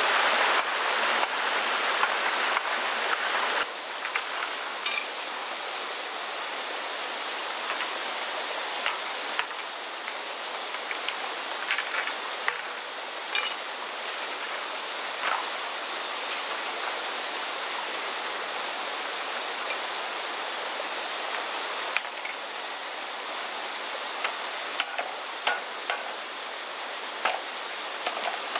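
Stream water running over rocky cascades, louder for the first few seconds and then a steadier, softer flow. Scattered sharp knocks and taps sound over it as green bamboo is cut and handled with a large knife.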